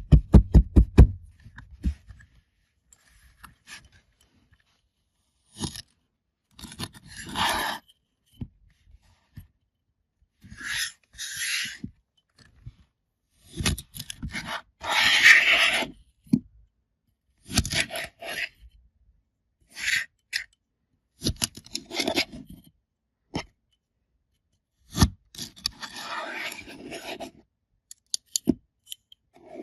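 Kinetic Sand packaging being handled and opened by hand: a quick run of taps in the first second, then on-and-off scraping, rustling and tearing strokes with short pauses between them.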